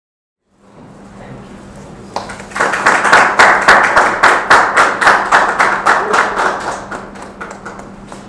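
A small group of people clapping in applause. It starts about two seconds in at a brisk, even rate of about four to five claps a second, then tails off near the end.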